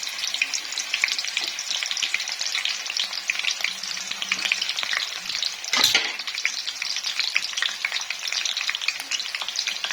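Onions frying in hot oil, a steady sizzle with dense crackling and spitting, the onions being browned. A single sharp knock sounds about six seconds in.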